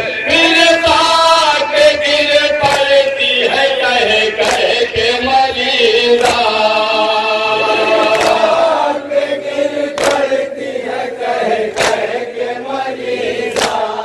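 A group of men chants a nauha, a Shia lament, in chorus. Sharp rhythmic matam chest-beating slaps fall about once a second. The singing drops back about two-thirds of the way through, leaving the slaps more prominent.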